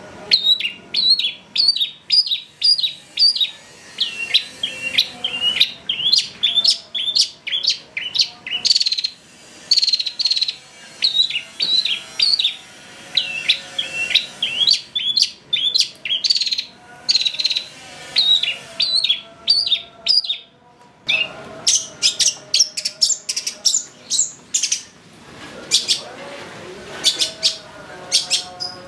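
Long-tailed shrike (cendet) singing a rapid string of short, sharp chirps, several a second, broken by brief pauses, with harsher, scratchier notes near the end.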